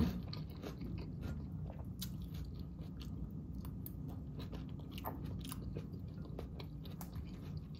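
A person chewing and crunching a mouthful of raw vegetable salad (romaine, red cabbage, carrots), a run of irregular crisp crunches.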